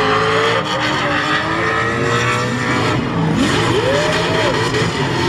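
Two or three drift cars sliding together in a tandem drift: their engines revving, the pitches rising and falling over one another, over the rushing noise of the spinning, smoking tyres. One engine swings up and back down about four seconds in.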